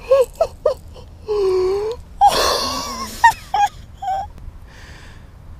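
A man's excited wordless vocalising: a few short yelps, a drawn-out moan that dips in pitch and rises back, then a loud breathy gasp, followed by a few more short yelps.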